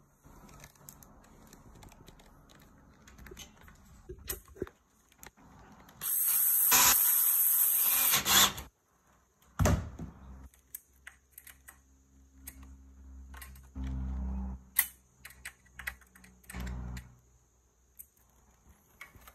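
Metal bars and plastic joints of a roof cargo basket frame being handled and fitted together: scattered clicks and knocks. A loud rushing, scraping noise runs from about six to eight and a half seconds in.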